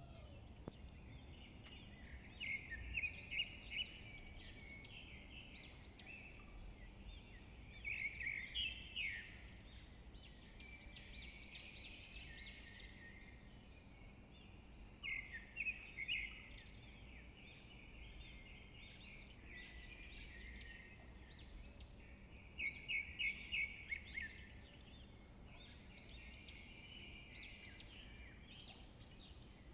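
Small birds chirping in quick runs of high notes, with several runs a few seconds apart over a faint low background hum.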